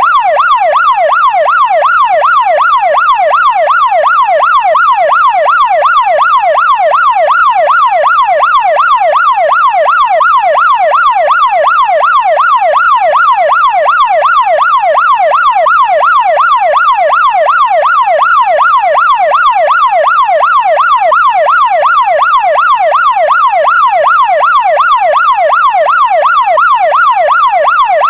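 Brazilian police car siren in a fast electronic yelp, its pitch sweeping up and down about twice a second, steady and loud throughout.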